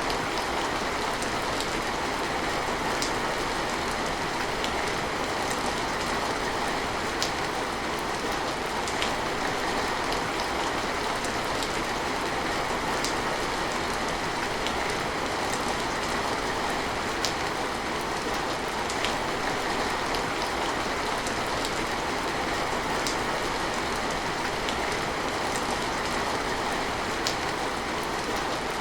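Steady, even rain with scattered sharp drop ticks.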